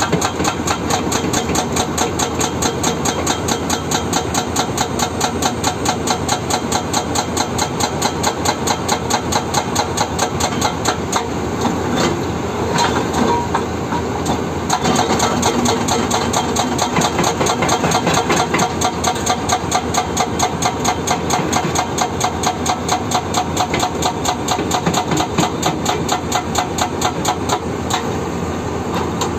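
Excavator-mounted hydraulic breaker hammering rock in rapid, evenly spaced blows, with the excavator's diesel engine running underneath.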